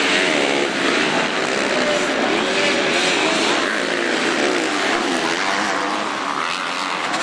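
Several MX2 motocross bikes accelerating through a dirt corner. Their engine notes overlap and rise and fall in pitch as each bike passes.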